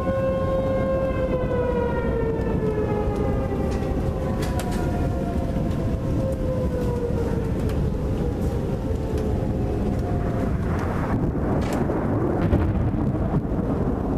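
Outdoor tornado warning siren winding down: its tone holds briefly, then falls slowly in pitch and fades out about ten seconds in. A heavy steady rumbling noise runs underneath and grows rougher near the end.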